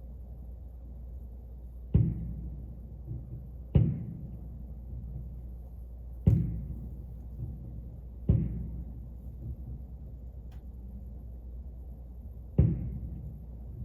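Fireworks shells bursting at a distance: five sharp booms, each trailing off in an echo, about two seconds apart at first with a longer gap before the last. A steady low hum runs underneath.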